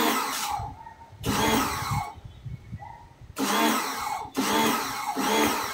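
Total 1400-watt electric pressure washer motor starting and stopping in several short bursts, each about a second long, rising and then falling in pitch as the trigger gun is squeezed and let go.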